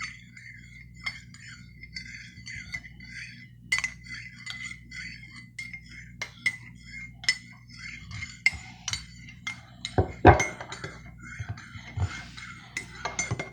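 Teaspoon stirring tea in a cup, clinking against the sides in quick irregular strokes while the cup rings with a lingering tone. A heavier knock comes about ten seconds in.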